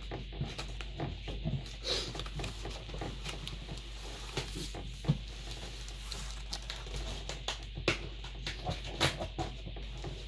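A large cardboard box being gripped and turned round on a wooden table: scattered knocks, scrapes and cardboard rustles, a few of them louder.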